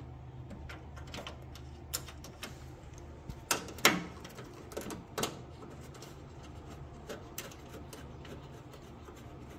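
Scattered light clicks and knocks of hands working the radiator's upper mount bracket and rubber bushing loose, over a faint steady low hum.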